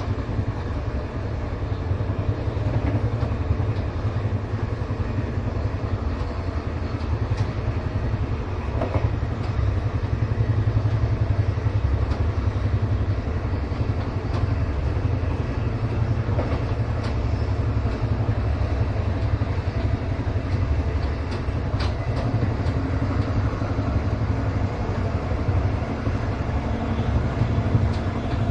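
Train heard from inside a passenger car while it is running along: a steady low rumble with a few sharp clicks and knocks from the running gear here and there.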